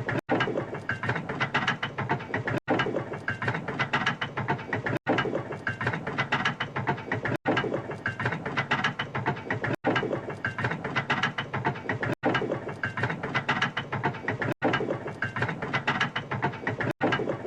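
Railway turntable sound effect: a continuous mechanical clicking and ratcheting of gears turning. It is looped, cutting out for a split second about every two and a half seconds.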